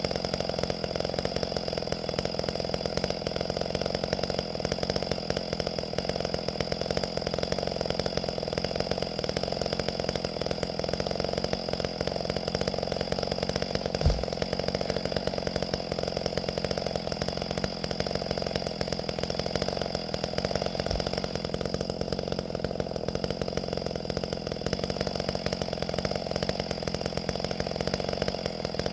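Two-stroke chainsaw running steadily at an even speed. A single sharp knock about halfway through and a fainter one later.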